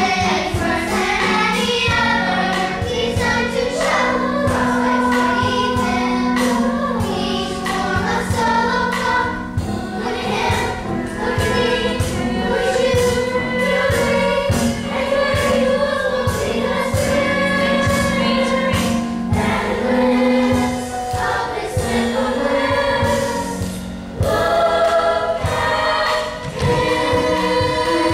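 A chorus of young voices singing a musical-theatre song together over instrumental accompaniment, with a brief lull shortly before the end.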